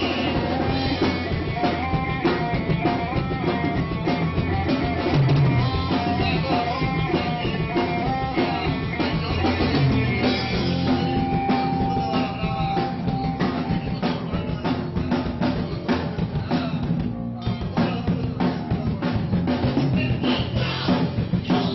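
Rock band playing live: drum kit, electric guitar and bass guitar, with a man singing over them. About two-thirds of the way through, the music drops back for a moment, and then the drums come through with sharp, regular hits.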